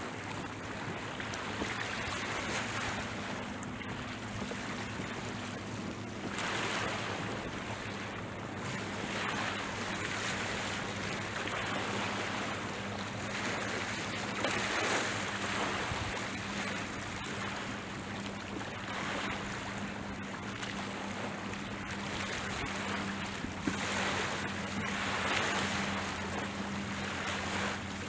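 Sea waves washing against a rocky shore, swelling every few seconds, with wind on the microphone and a steady low hum underneath.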